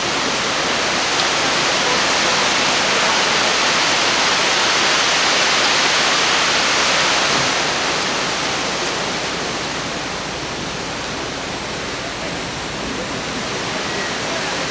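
Waterfall: a steady rush of falling water, slightly louder in the first half and easing a little after about 8 seconds.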